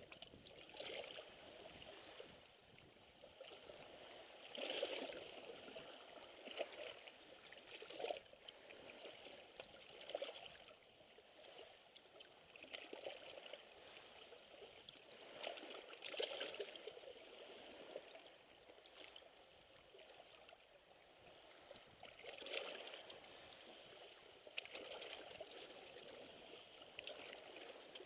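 Faint small sea waves lapping and splashing against shoreline rocks, in irregular soft swashes every second or few.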